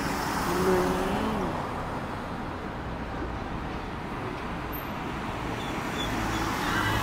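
Road traffic on a city street: trucks and cars passing, a steady rush of engines and tyres.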